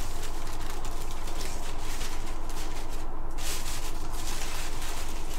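Sheets of stamped tissue paper rustling and crinkling as hands shift and smooth them flat, with a short pause about three seconds in, over a steady low hum.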